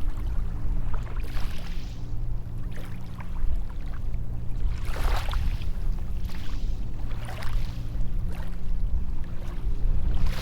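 Small sea waves washing up onto a sandy beach over a steady low surf rumble, with hissing washes about a second in, around five and seven seconds in, and again at the end.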